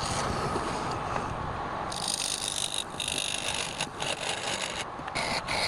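A lathe running while a turning tool cuts the spinning workpiece, a steady grinding hiss that drops out briefly several times in the second half as the cut breaks off.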